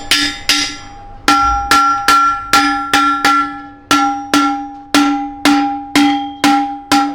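Hammer striking steel, about two blows a second, each blow ringing with the same clear bell-like tones and fading quickly. There is a short pause about half a second in before the blows resume.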